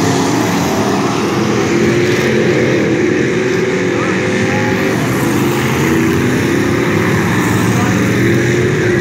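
A pack of dirt-track stock cars racing through a turn, several engines running loudly at once, their pitches overlapping and wavering.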